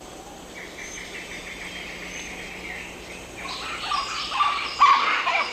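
Rainforest animal sounds: a faint rapid trill, then from about three and a half seconds in a loud, growing bout of chattering, squealing animal calls.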